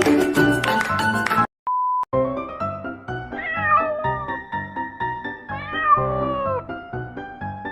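Meme sound-effect audio: music cuts out about a second and a half in, a short steady beep sounds, then slow music plays under several long, falling cat meows, the crying sound of the banana cat meme.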